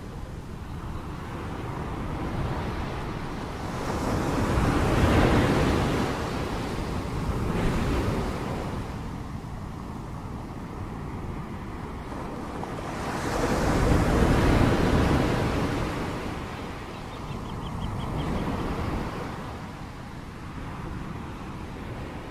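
Ocean surf: a continuous wash of water with waves breaking in swells that rise and fade several times.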